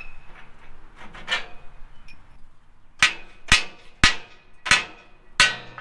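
A hammer striking the rusty steel parts of a Ferris wheel: two light knocks, then five hard ringing blows about two-thirds of a second apart in the second half, knocking a rusted part loose.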